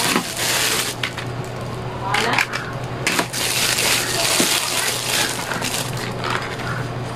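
Clear plastic packaging bags crinkling and rustling as they are handled, in irregular bursts.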